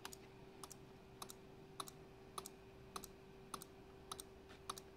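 A small 12 V relay in a home-built flasher unit clicking as it switches an indicator bulb on and off, in close pairs of sharp clicks about every 0.6 s, a steady blink rhythm. A faint steady hum runs underneath.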